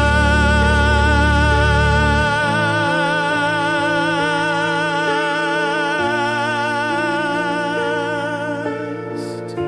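AI-generated song in its closing bars: one long note held with vibrato over sustained chords and a slow-moving bass, gradually getting quieter.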